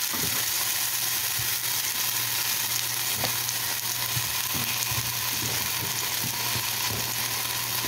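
Sauce-dipped flour tortilla frying in shallow oil in a skillet: the oil sizzles steadily, with scattered small pops and crackles.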